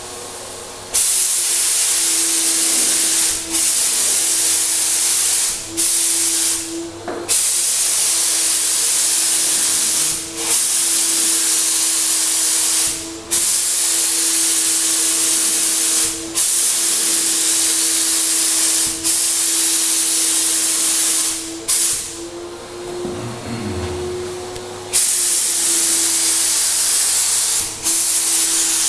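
Graco HVLP 9.5 turbine paint sprayer running with a steady hum while the spray gun hisses in repeated passes of two to three seconds each. The trigger is released briefly between strokes, with a longer pause about three quarters of the way through.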